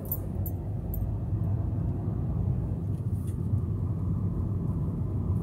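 Inside a moving car's cabin: steady low road and engine rumble while driving slowly, with a few faint jingles of keys in the first second.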